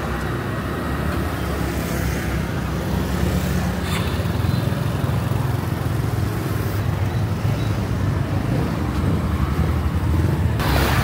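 Road traffic on a city street: a steady low rumble of passing vehicles, with a short louder burst near the end.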